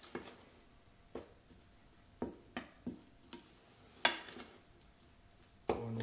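Spatula scraping and knocking against a stainless steel mixing bowl while cookie dough is folded: a handful of irregular taps and scrapes, the loudest about four seconds in.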